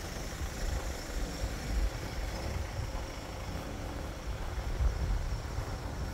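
Outdoor street ambience: an uneven low rumble of road traffic over a faint steady hiss.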